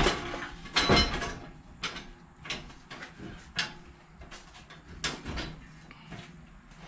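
Handling noise and footsteps: a string of irregular light knocks and clicks, with a louder thud about a second in.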